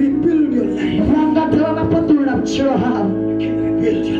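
Music: a voice singing over steady held instrumental chords.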